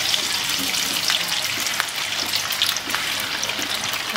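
Fish cake patty deep-frying in hot oil in a wok: a steady sizzle with many small crackling pops.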